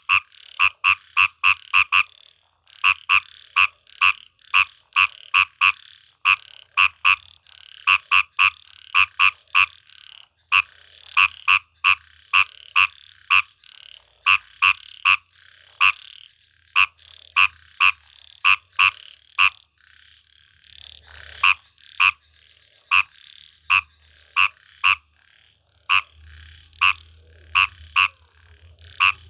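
Frogs croaking: runs of short, sharp calls, two to three a second, broken by brief pauses, over a thin, steady, high-pitched tone.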